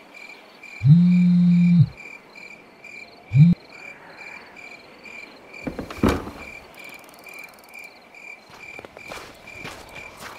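Crickets chirping steadily, about two chirps a second. About a second in, a loud low hum lasts about a second, and a brief second hum follows near three and a half seconds. A sharp knock comes about six seconds in.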